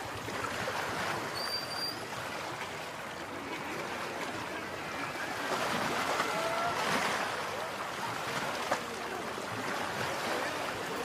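Swollen river floodwater rushing steadily over and past a bridge, a continuous rushing hiss, with one sharp click late on.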